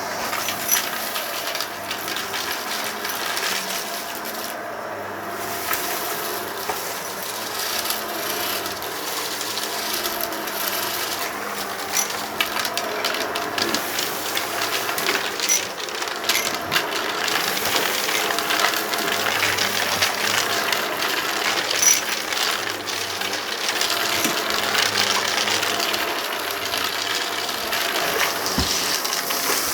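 Vacuum cleaner running close to its microphone, sucking up a gritty debris mix from a rug, with many small rattles and clicks as particles are drawn in.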